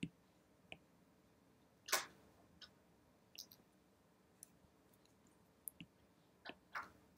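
Faint, scattered clicks of an Apple Pencil tip tapping and drawing on an iPad's glass screen, the clearest about two seconds in and two more near the end.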